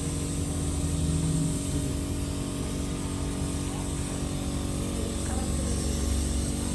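A steady, low mechanical hum of a motor or engine running, with no distinct knocks or changes.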